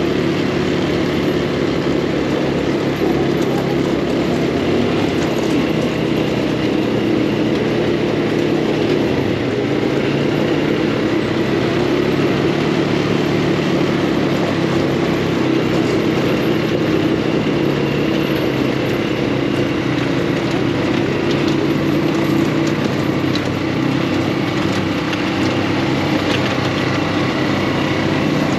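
Off-road buggy engine running steadily at speed, heard from on board with a continuous noise of wind and terrain over it.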